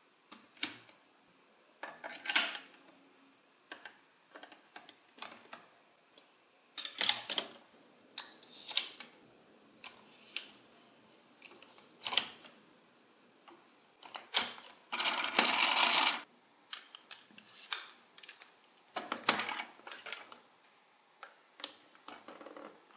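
Plastic building bricks and gear parts clicking and knocking irregularly as they are pressed and fitted together by hand, with a longer rustle of plastic pieces lasting about a second and a half about two-thirds of the way through.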